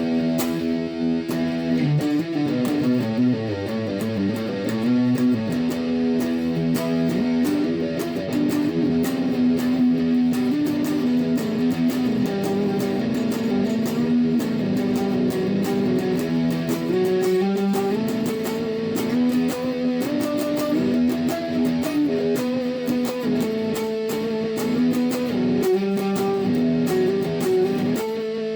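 Washburn Eagle electric guitar played through overdrive: picked chords and sustained single notes, a changing riff that goes on without a break.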